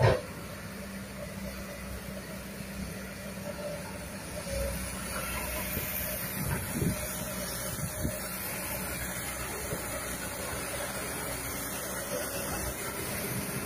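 Kobelco hydraulic excavator's diesel engine running steadily as the machine tracks and swings, with one sharp knock at the very start.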